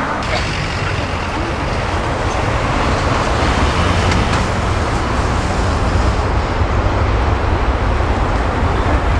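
Boeing 787-9 airliner's Rolls-Royce Trent 1000 turbofans running at low taxi thrust as the jet turns onto the runway: a steady jet rumble with a broad hiss, slowly growing louder.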